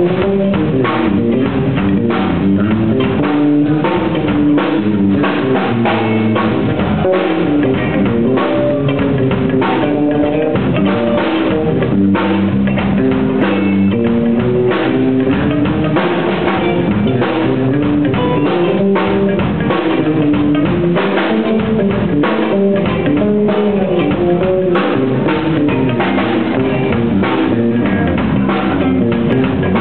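Live band playing a funk instrumental jam: a drum kit keeps a steady beat on bass drum and snare with rimshots, under a moving guitar line.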